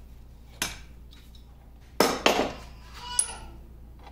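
Metal clanks and clinks from a crescent wrench and loose steel parts being handled on a cast-iron lathe apron: a knock about half a second in, a loud cluster of clanks about two seconds in, and one ringing clink a little after three seconds.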